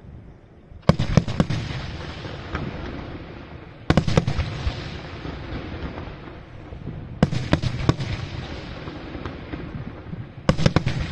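Aerial firework shells bursting in four salvos about three seconds apart. Each salvo is a quick cluster of sharp bangs followed by a rumble that slowly fades.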